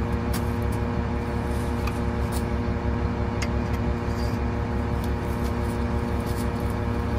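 An engine idling steadily, a low rumble with a constant hum, with a few faint short clicks.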